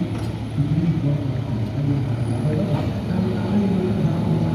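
Bobcat B900 backhoe loader's Ashok Leyland diesel engine running steadily.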